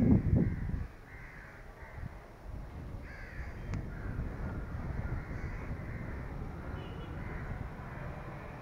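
Crows cawing: loud harsh caws in the first second, then fainter calls scattered through the rest, over a steady low rumble of wind on the microphone.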